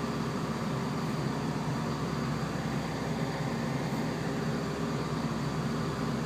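Steady low rumble and hum inside a passenger train carriage.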